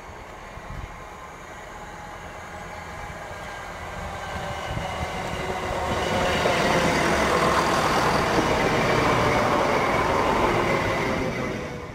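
TransPennine Express diesel multiple unit approaching and passing close by at speed: engine note and wheel rumble build up, stay loud while the cars go past, then drop away sharply as the last car clears.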